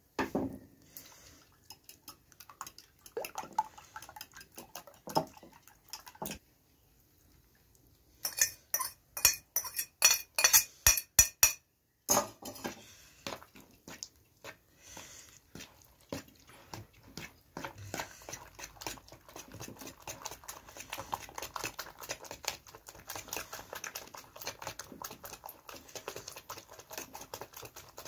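Metal spoon beating raw eggs and shredded cabbage in a bowl, clinking against the bowl's sides. About a third of the way in comes a run of loud strikes, about four a second, then quicker, softer beating.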